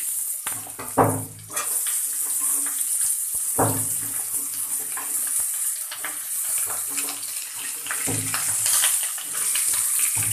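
Hot oil sizzling steadily as freshly added raw papaya cubes fry with potato pieces in a kadai, with a few short clinks of the spatula against the pan.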